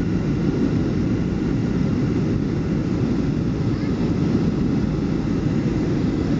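Steady low cabin noise of a Boeing 737 airliner on approach, the engines and airflow heard from inside the cabin at a window seat.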